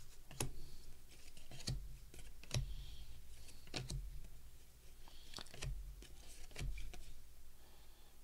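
A stack of baseball cards being flipped through by hand: stiff cardboard cards sliding off the pile and snapping against each other, a sharp click about every second with soft rustling between.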